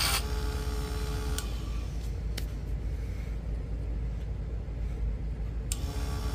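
Vevor mini woodworking lathe's small motor whining, cutting off abruptly with a click about a second and a half in, leaving a low hum with another click, then starting again with a click near the end.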